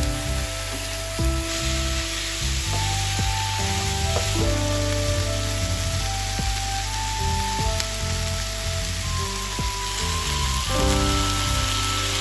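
Beef chunks with onion and carrot sizzling as they fry in oil in a nonstick frying pan, the sizzle growing stronger about a second and a half in.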